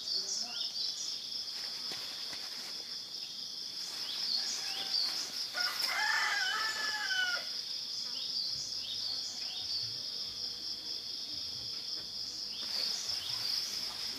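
Steady high-pitched chorus of insects with short chirps, and a rooster crowing once, a call of about two seconds that rises and falls, around six seconds in.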